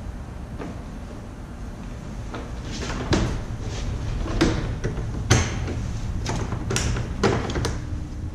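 A run of about a dozen sharp, irregular clacks and knocks starting about three seconds in, the loudest near the middle, from a kayak's clip-in seat being fitted and handled against the plastic hull.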